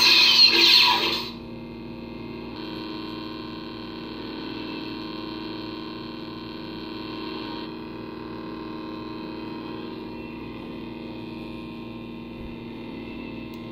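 Electronic lightsaber replica's sound board playing a steady idle hum through its speaker, after a loud burst that cuts off about a second in.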